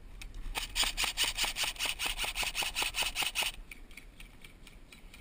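Airsoft gun firing a rapid string of about twenty shots, roughly seven a second, for about three seconds, then stopping abruptly.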